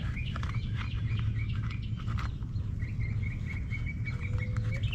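Birds chirping, with a quick string of rapidly repeated notes near the end, over a steady low rumble.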